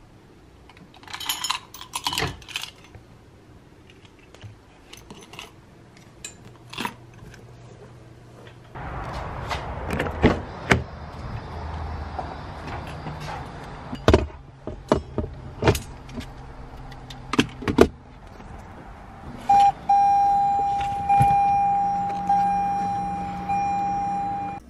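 Car keys jangling and a run of clicks and knocks, then a louder steady rumble sets in about a third of the way through. Near the end a car's warning chime rings over and over at one pitch.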